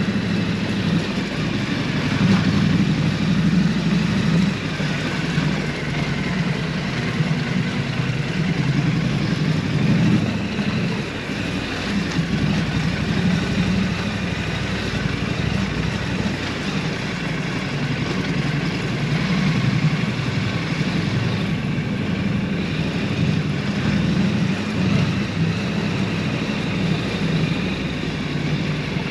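Triumph Scrambler 900's parallel-twin engine running steadily under way, with a steady rush of wind and road noise over it.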